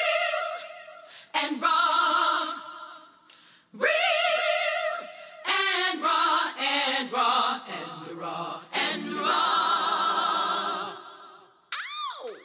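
Unaccompanied women's voices singing a cappella in harmony, in several long held phrases with vibrato and short breaks between them. A brief swooping glide sounds near the end.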